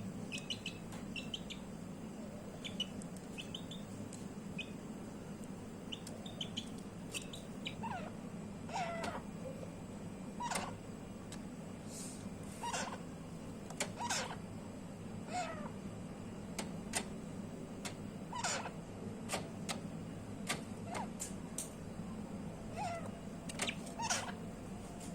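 Short animal calls, scattered one every second or two, some sliding up or down in pitch, over a steady low hum.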